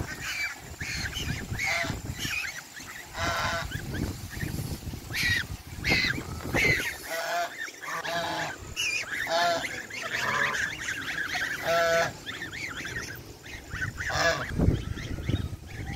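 A flock of domestic geese honking, many short calls one after another and overlapping throughout.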